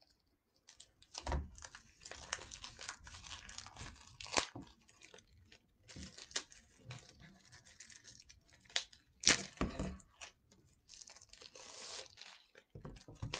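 Plastic shrink-wrap being torn and peeled off a cardboard game-master screen: irregular crinkling and tearing, with a few louder rips.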